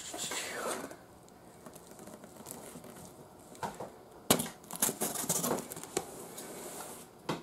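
Packing tape on a cardboard shipping box being slit and torn open along the lid seam, with cardboard rustling and scraping. Two sharp knocks stand out, about four seconds in and near the end.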